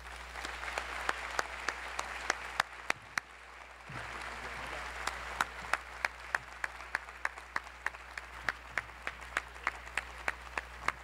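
Audience applauding, with one person's sharper claps close by standing out at about three a second. The applause drops off briefly about three seconds in, then picks up again.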